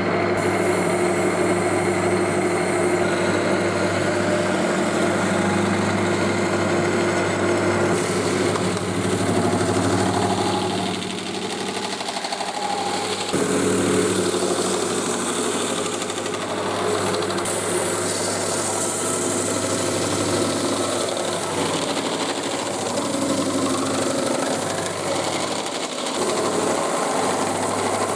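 Electric machine tool running in a metalworking shop: a steady motor hum with metal-working noise over it, the texture changing several times.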